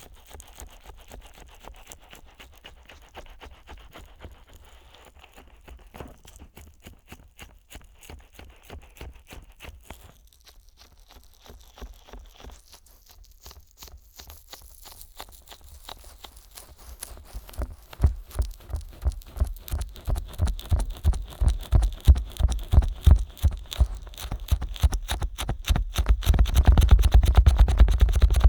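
Fingers working the silicone ears of a 3Dio binaural microphone, slicked with petroleum jelly, in fast, repeated rubbing and scratching strokes. The strokes grow much louder and heavier about two-thirds of the way in, and louder again near the end.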